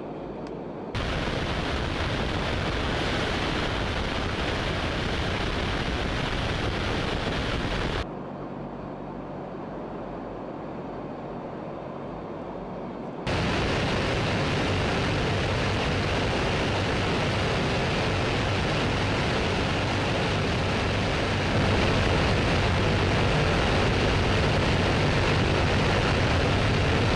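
Steady roar of a heavy bomber in flight: rushing air over a low engine drone. It jumps in level at edits, and is loudest in the second half, which is heard from inside the open bomb bay.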